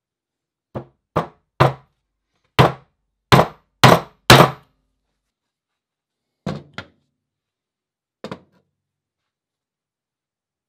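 Ball peen hammer blows, sharp knocks each with a low thud: seven in quick succession over the first four and a half seconds, getting louder, then two close together at about six and a half seconds and a lighter one near eight seconds.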